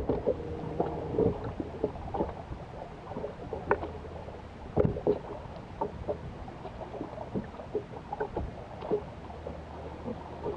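Irregular small knocks and splashes, water lapping against the boat's hull and the fish and tackle being handled, over a faint low steady hum.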